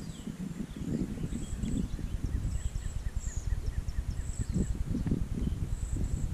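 Wind rumbling on the microphone, with small birds chirping and a short high buzz repeating every second or so.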